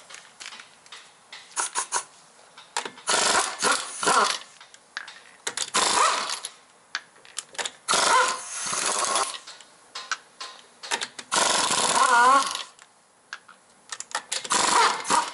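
Impact wrench hammering the lug nuts loose on a car's front wheel, in several short bursts.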